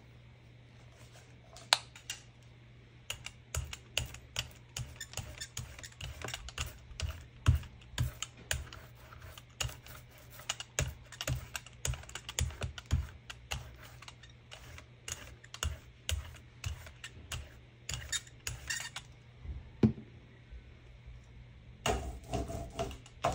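Irregular light clicks and taps, several a second, from art supplies being handled on the work table, with a pause near the end before a denser clatter.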